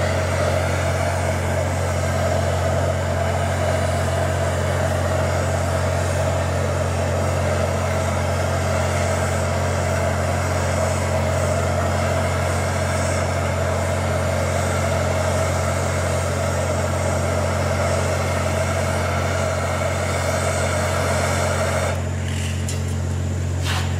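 Handheld gas torch burning with a steady hissing flame, shut off abruptly near the end. A steady low engine-like hum runs beneath it throughout.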